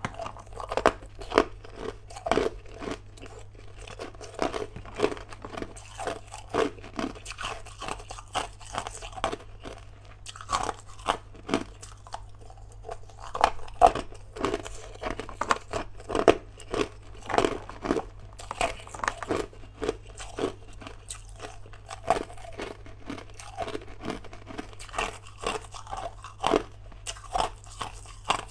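Hard ice crunched and chewed between the teeth: an irregular run of sharp, crisp cracks, several a second, with louder bites here and there.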